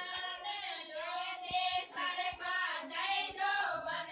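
A group of women singing together unaccompanied, with long held notes that bend and slide in pitch, in the manner of a Rajasthani folk song sung at an engagement.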